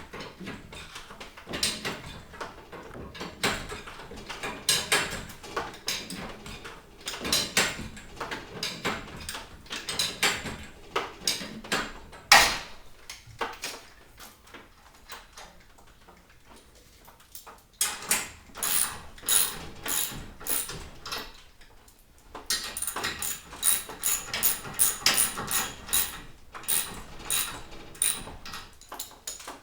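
Metal clicking and clanking from a garage door torsion spring being wound by hand with steel winding bars. Clusters of knocks come every second or so, with one loud knock about 12 seconds in, then a quieter spell and a fast run of clicks in the last third.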